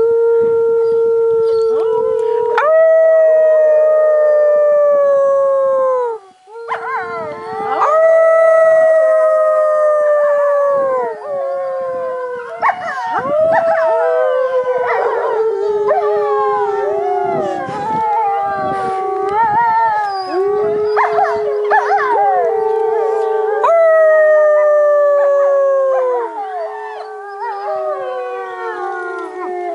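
Wolves howling together in chorus: several long, overlapping howls, one low note held under higher voices that glide and fall off at their ends, with a brief break about six seconds in.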